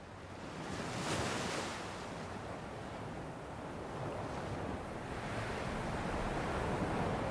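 Rushing noise of waves and wind on open water, fading in and swelling about a second in and again near the end.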